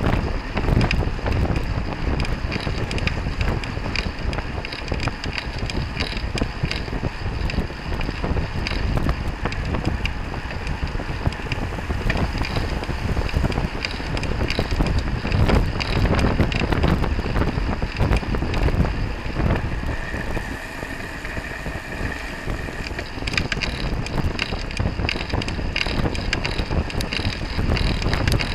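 Wind rumbling on the microphone of a camera mounted on a road bicycle at racing speed, over tyre and road noise, with rapid small rattles and clicks from the bike on the road surface.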